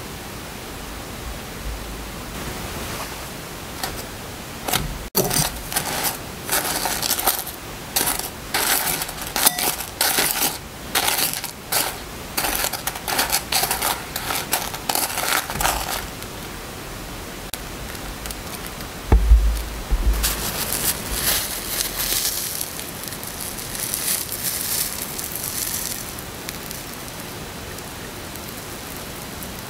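Tongs clicking and scraping against a glass bowl as fried malasadas are rolled in granulated sugar: a quick, irregular run of sharp taps and gritty rustles for about ten seconds. Later comes a low thump and a spell of softer rustling.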